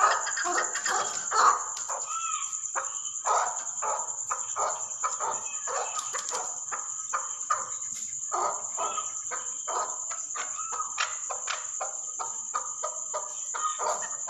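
Chukar partridge calling: a long series of short repeated calls, about two to three a second, over a steady high-pitched whine.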